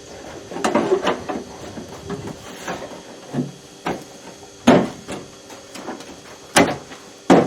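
A series of irregular knocks and thumps, about six over several seconds and unevenly spaced, with the loudest ones near the end.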